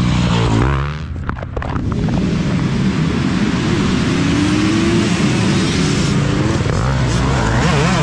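Dirt bike engine running hard, briefly easing off about a second in, then a rising engine note as the bike accelerates.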